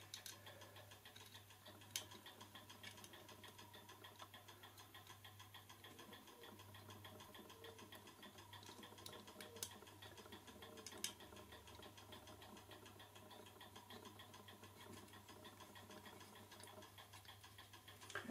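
A clock ticking steadily and fast, faint, with a few sharp small metallic clicks about two, ten and eleven seconds in from screws being fitted into a clock movement's back plate.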